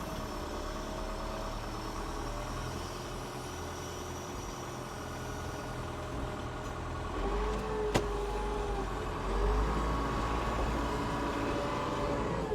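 Mack semi truck's diesel engine running under way. It gets louder a little past halfway, with its pitch swinging up and down as it revs, and there is a single sharp click about eight seconds in.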